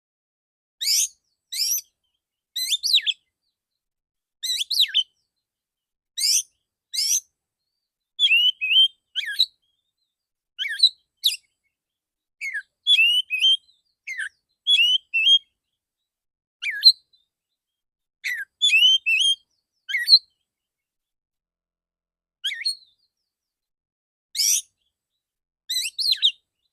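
Male Oriental magpie-robin singing: short, sharp whistled phrases of under a second each, about twenty of them, broken by silent gaps.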